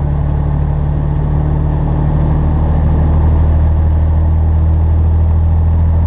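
Semi truck's diesel engine running steadily while driving, a low drone heard inside the cab, getting a little louder about two seconds in.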